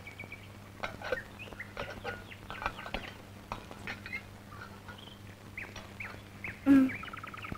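Rural ambience of chickens clucking and small birds chirping in short, scattered calls, with one louder call near the end, over a low steady hum.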